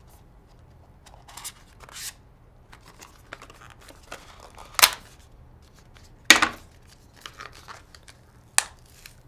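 Packaging being handled: faint crinkling and rustling, with three louder sharp sounds about five, six and eight and a half seconds in.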